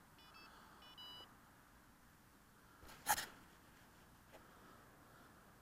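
A few short, high electronic beeps from the quadcopter's electronics in the first second or so, then a single sharp click about three seconds in, with a fainter click later.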